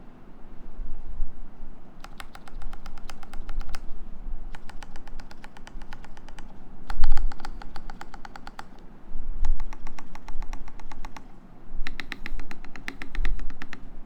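Typing on a KBDFans 8X MK-II mechanical keyboard with lubed linear Cherry MX Black switches on an aluminium plate, in five quick runs of rapid keystrokes with short pauses between.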